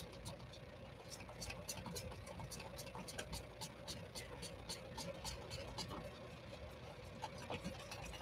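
Wooden craft stick stirring resin in a small plastic cup: quick, irregular light clicks and scrapes, several a second, over a faint steady hum.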